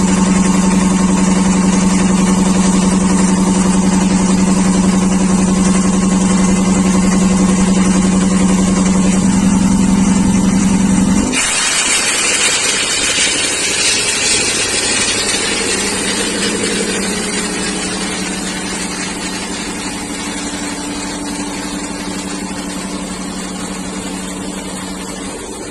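Atlas Copco high-pressure air compressor running with a strong, steady hum. About eleven seconds in, the hum drops suddenly and a loud hiss sets in, fading slowly while a fainter hum carries on.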